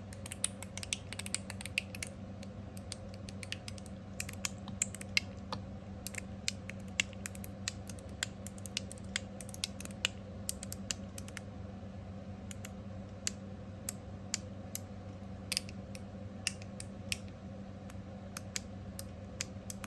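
Copper TopB mechanical fidget slider being worked back and forth, its spring-loaded 2.7 mm ball detents clicking sharply at irregular intervals, without the ping of the springs.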